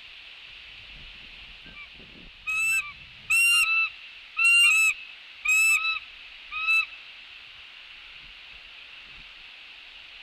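A large bird calling: five loud two-note calls about a second apart, each note a short, nasal, pitched call, over a steady hiss of wind.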